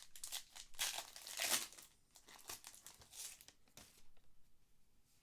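A trading card pack wrapper being torn open and crinkled: a string of rustling, crackling bursts, loudest about a second and a half in, dying away after about four seconds.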